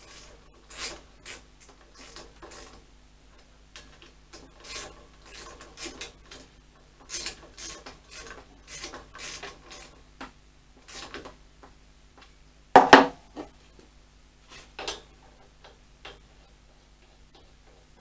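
Metal parts of a motorcycle front wheel assembly being worked into the forks: irregular short scrapes and rubs as the spindle and spacers are fitted, with one louder knock about two thirds of the way through.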